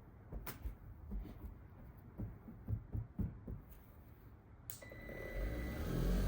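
Faint taps and knocks of handling, then about four and a half seconds in a cordless rotary buffer-polisher on a DeWalt battery switches on, its motor giving a steady high whine over a low rumble that grows louder as it spins up.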